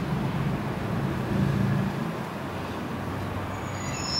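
ED76 AC electric locomotive moving slowly, a steady rumble with a low hum that eases after about two seconds. A short high squeal near the end.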